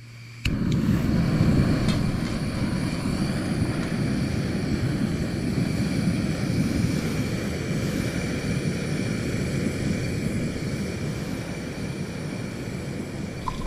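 Gusty wind blowing across the microphone: a steady low rumble that wavers in strength, cutting in abruptly about half a second in, with a faint high whistle above it.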